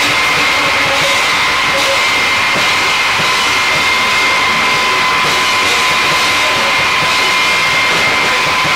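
Live Japanese harsh noise music: a dense, steady wall of distorted noise with two high whining tones held over it.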